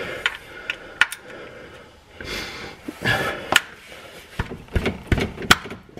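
Scattered metallic clicks and knocks from a ratchet and socket being worked against an overtightened oil drain plug on a Honda CR-V oil pan.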